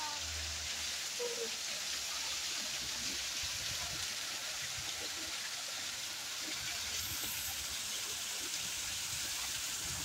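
Water from a decorative rock waterfall fountain falling and splashing steadily onto stone and into its pool.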